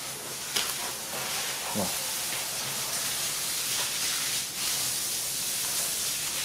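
A steady hiss, with a few light clicks.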